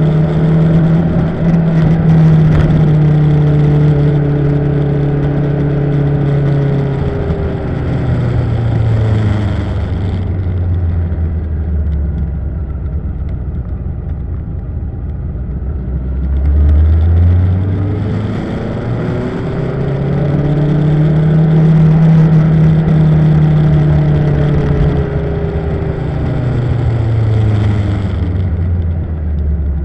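Motorcycle engine running under way on a winding road. Its pitch holds high at first, falls over several seconds as the bike slows, climbs again as it accelerates, then falls near the end.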